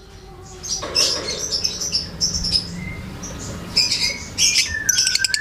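Lovebird chattering: a run of irregular high, scratchy chirps and squeaks that starts about a second in, with a longer held note near the end.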